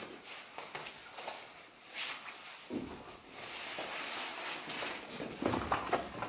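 Vanguard Adaptor 46 camera backpack being handled: nylon shoulder straps and fabric rustling, with small clicks and knocks from the strap fittings, as it is worn on both shoulders and then swung off.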